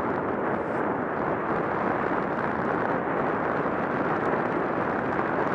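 Steady rushing noise from riding a bike pulled along a packed-snow trail: wind over the microphone mixed with tyres rolling on snow.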